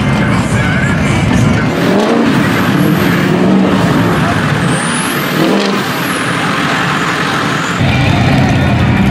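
Lifted mud trucks' engines revving as they churn through mud and water, the revs climbing and falling twice. The sound changes abruptly near the end to a steadier engine.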